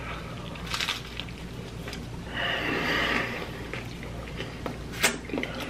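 A person eating close to the microphone: a few short wet mouth clicks of chewing, and a breathy noise about a second long in the middle.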